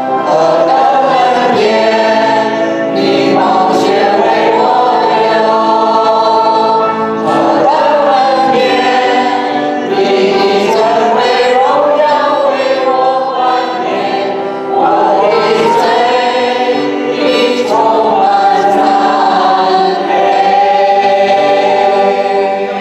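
A church worship team singing a Chinese hymn together on microphones, several voices at once over sustained held notes. The singing fades as the song ends, right at the end.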